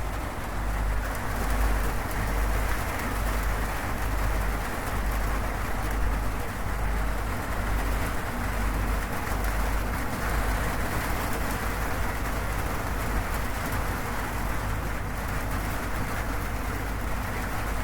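Steady, heavy rain falling on a zinc roof, an even patter with a constant low rumble beneath it.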